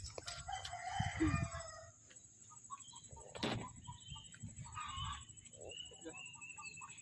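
Domestic chickens clucking with a rooster crowing, in short scattered calls, over a steady high thin drone.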